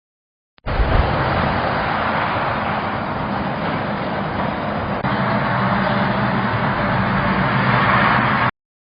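Mechron 2450 farm utility carrier running while driving, a steady engine and machine noise that is the rattling complaint being checked. It steps up a little in level about five seconds in and cuts off suddenly near the end.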